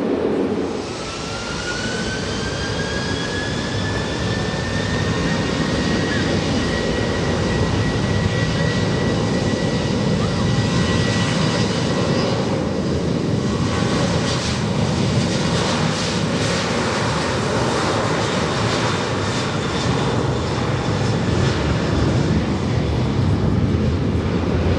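Jet aircraft engines running loud, with a turbine whine that rises in pitch over the first few seconds and then holds steady over a continuous rumble.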